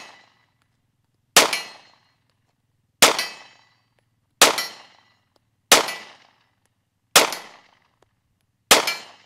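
Six shots from a Springfield XD-S 9mm pistol firing Winchester 147-grain jacketed hollow points, evenly spaced about one and a half seconds apart. Each shot hits a distant steel plate.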